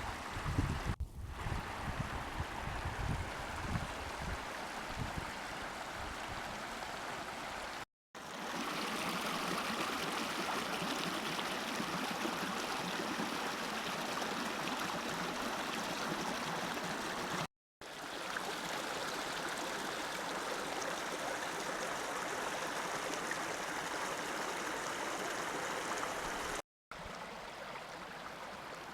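Steady rush of water flowing in a small spring run, with low rumbling in the first few seconds. Broken by three brief silent gaps where clips are joined.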